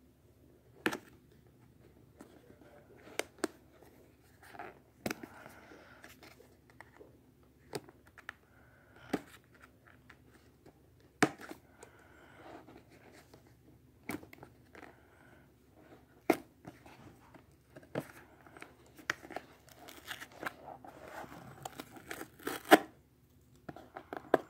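Cardboard packaging being torn open at its tear strip and handled: tearing and rustling paper with scattered sharp clicks and snaps, the sharpest near the end.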